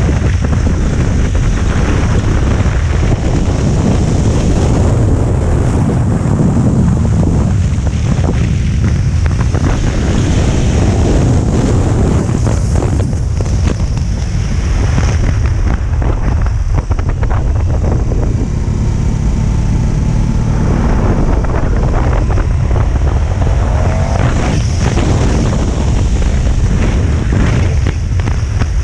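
Heavy wind rushing over the microphone on a KTM 1290 Super Adventure at about 90 km/h, with the bike's V-twin engine running underneath and its pitch rising and falling a little with the throttle.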